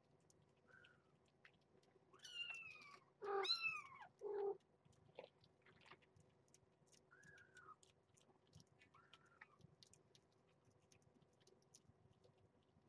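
Kittens mewing: a few faint, high mews and a louder run of three mews between about two and five seconds in. Faint clicking and smacking of cats eating wet food from a plate comes through underneath.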